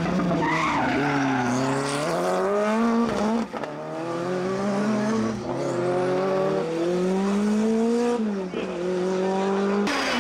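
Rally car engine driven hard. Its pitch dips at first, then climbs steeply through the revs, breaking off briefly about a third of the way in and again near the end, as at gear changes.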